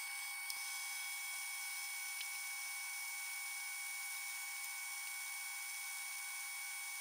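Metal lathe running under power feed, a boring bar taking a light cut in the bore of a mild steel spindle. It makes a steady, faint whine with several fixed tones and one small click about half a second in.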